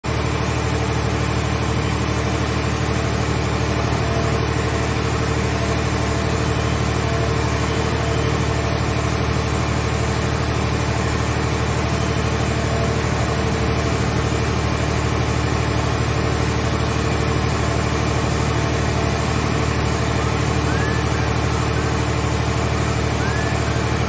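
Hydraulic car scrap baler machinery running with a steady, unchanging drone.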